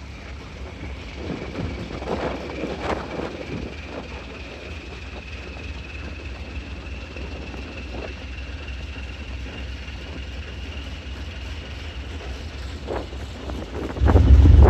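Steady low engine rumble aboard a passenger ferry under way, with a faint thin whine that slowly rises in pitch. Near the end a sudden loud gust of wind hits the microphone.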